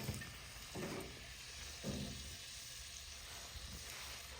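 Steady faint sizzling of venison backstrap cooking in butter and drippings on the grill. Two brief soft low sounds come through about one and two seconds in.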